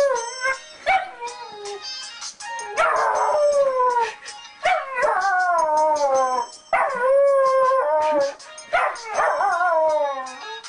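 Black-and-tan puppy howling: a short call and then four long howls, each sliding down in pitch.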